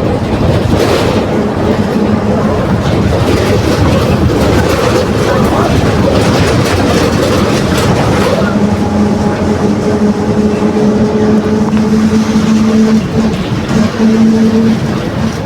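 Volksbus 17.230 OD bus under way: steady running and road noise with a droning whine from a growling differential, strongest from about halfway through.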